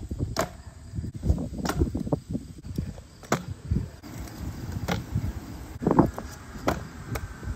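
Stunt scooter wheels rolling over rough asphalt, broken by several sharp clacks as the deck and wheels hit the road when landing flat tricks.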